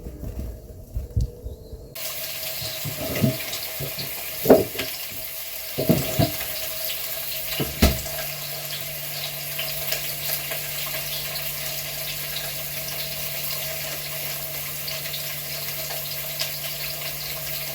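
A tap running into a sink, switched on about two seconds in and running steadily. Several sharp knocks or clatters sound in the first eight seconds, the loudest about four and a half seconds in.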